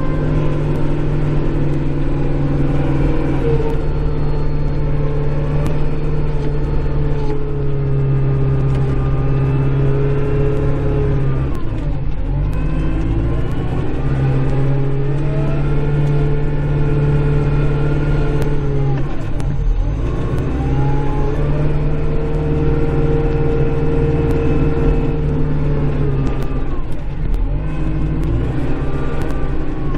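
Kubota Grand L5740 tractor's diesel engine running steadily, heard from inside the cab, its pitch dipping and recovering three times as it is worked pushing snow with the blade.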